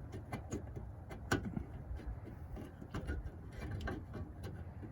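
Scattered light clicks and taps of small metal parts being handled while fitting a replacement car antenna, with one sharper click about a second in, over a low steady rumble.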